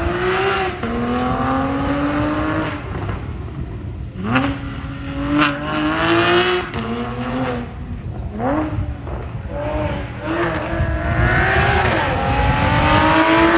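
Porsche Boxster's engine revving hard on an autocross run: about four climbs in pitch under acceleration, each broken off as the car lifts and drops back for the next corner.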